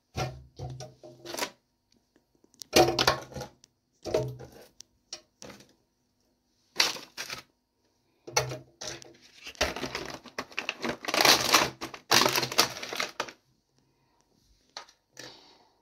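Thin plastic fruit punnet crinkling and clicking as frozen strawberries are handled in it, in irregular bursts with a longer spell of rustling about ten seconds in.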